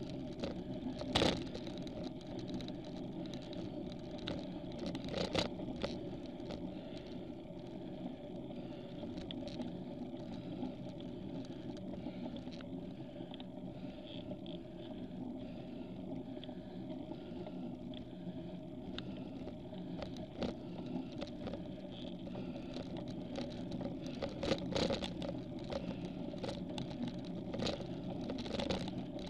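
Steady riding noise of a road bike climbing slowly, picked up by a camera mounted on the bike, with a few sharp knocks or rattles about a second in, around five seconds, and twice near the end.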